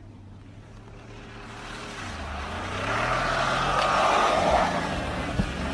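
SUV engine revving hard as it accelerates across snow, its note rising and growing steadily louder, with a rushing hiss over it.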